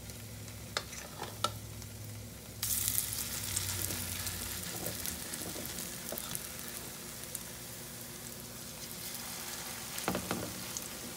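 Salmon-patty batter frying in hot grease in a pan, a steady sizzle. About two and a half seconds in the sizzle suddenly gets louder as more batter goes into the oil, and a few light clicks of a utensil sound before and near the end.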